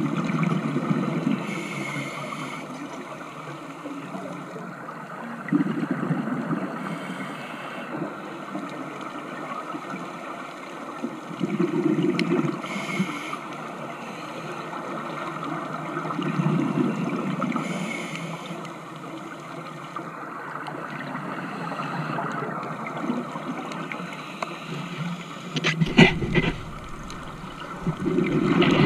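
Scuba regulator breathing underwater: a surge of exhaled bubbles, then a short inhalation hiss, about every five and a half seconds. Near the end there are a few sharp clicks and a low rumble.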